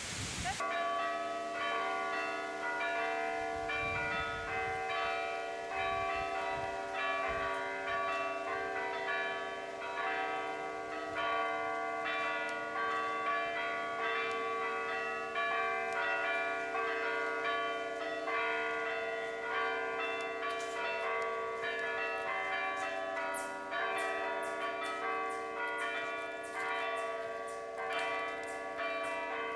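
Church bells playing a tune, many struck notes ringing on and overlapping one another. They come in suddenly about half a second in, in place of wind noise on the microphone.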